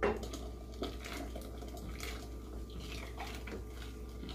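Thick blended masa-and-milk mixture pouring in a steady stream from a blender jar into a steel pot of chocolate mixture, with a few light knocks against the pot.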